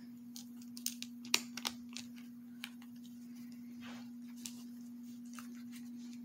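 A Buck 110 folding knife is slid into a leather sheath and the snap flap is pressed shut. This gives a cluster of sharp clicks and taps about a second in, then soft leather rubbing, over a steady low hum.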